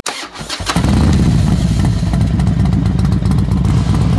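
A Harley-Davidson Sportster 1200's air-cooled V-twin starting. It cranks with a few knocks for under a second, catches about three-quarters of a second in, and then runs steadily with a deep rumble.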